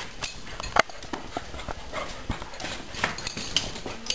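Two dogs playing and scrambling on a tiled floor, their claws clicking and skittering on the tiles in quick irregular taps, with one sharper knock a little under a second in.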